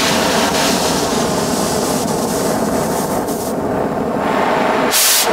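Oxyacetylene torch flame burning with a steady rushing hiss while its flame is being adjusted, with a short, sharper blast of hiss near the end.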